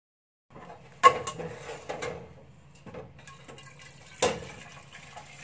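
A metal spatula knocking and scraping against a steel wok as wet rice in chicken broth is stirred and tipped out, with liquid pouring. There are several sharp clanks, the loudest about a second in, over a low steady hum.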